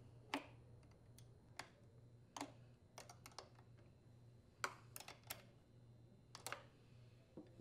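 Faint, irregular metal clicks and taps, about a dozen of them, from a small wrench working the locking nut on a leaf blower's throttle cable as it is tightened.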